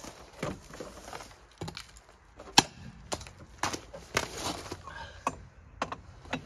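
Breaker bar and socket knocking and clicking on a truck's stiff wheel nuts while they are forced loose by foot on the bar and the socket is moved from nut to nut. The loudest knock comes about two and a half seconds in, among about half a dozen sharp clicks.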